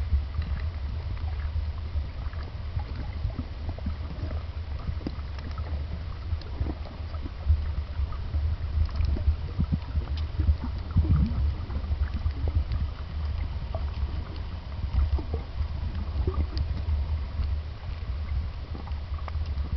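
Underwater sound on a coral reef: a steady low rumble with scattered faint clicks and crackles.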